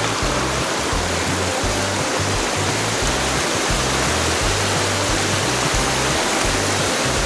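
Steady rush of mountain stream water, with background music's bass notes underneath.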